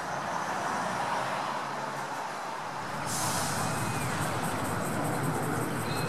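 Street traffic with a bus and cars at an intersection, engines running. About halfway through, a sudden steady hiss joins in.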